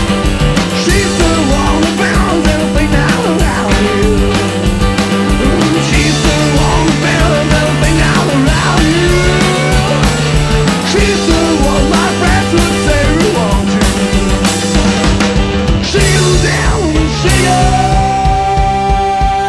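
Rock band playing: a steady drum beat and bass under a lead line that bends up and down in pitch. Near the end one high note is held long.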